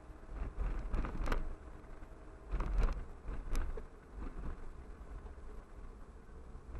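A car driving slowly on a town street, heard from inside the car: a low rumble of road and wind noise, with short rattles and clicks from bumps, clustered about a second in and near three seconds.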